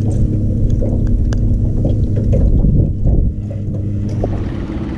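Boat motor running with a steady low hum that cuts off about three seconds in, under wind rumbling on the microphone.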